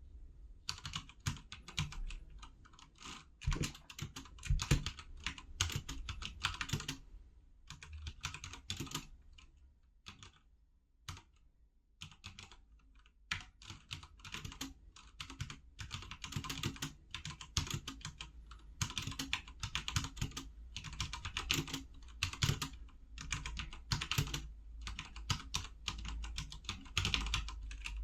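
Typing on a HyperX Alloy FPS Pro tenkeyless mechanical keyboard with Cherry MX Red linear switches: fast runs of keystrokes broken by short pauses. About a third of the way in it slows to a few isolated keypresses before fast typing resumes.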